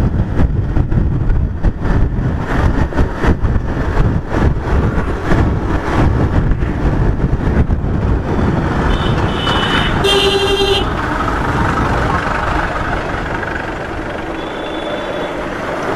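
Wind buffeting the microphone over the running noise of a moving motorcycle, gustier in the first half and steadier later. A short horn toot sounds about ten seconds in, as a slower pickup is overtaken.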